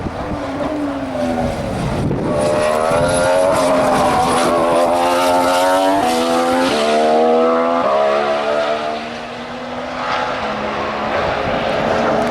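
Formula One car's turbocharged V6 accelerating, with its engine note climbing and then dropping in quick steps as it shifts up through the gears. The engine then runs on at a steadier pitch, fading briefly and coming back louder near the end.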